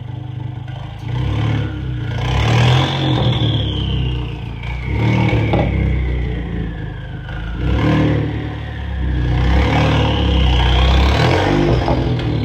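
Mk7 Volkswagen Jetta's turbocharged engine running with a loud turbo whine. The whine rises in pitch and falls away twice, first about two to three seconds in and again around eleven seconds, over a pulsing low engine rumble.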